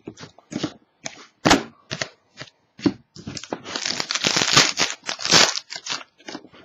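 Trading cards handled and set down with short sharp clicks, then the foil wrapper of a trading-card pack crinkling and tearing open for about two seconds, starting a little past the middle.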